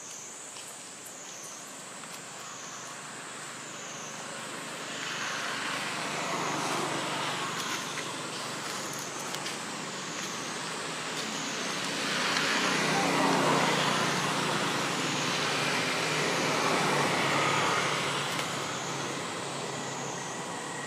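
Road traffic passing, its noise swelling and fading twice, over a thin high drone that wavers up and down about once a second.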